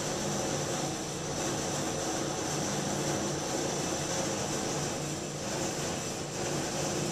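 Steady outdoor background hum and hiss, unchanging throughout.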